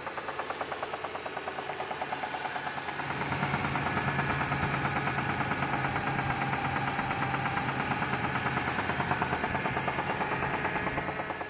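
Engine running with a rapid, regular knock that rises in speed and loudness about three seconds in and settles back near the end. The owner suspects rod knock, with oil pressure that comes and goes.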